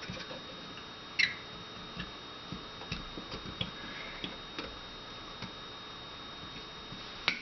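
Light, scattered clicks and taps of a pin punch working against a Beretta PX4 Storm Compact's frame and trigger pin as the pin is pushed out, with a sharper click about a second in and another near the end.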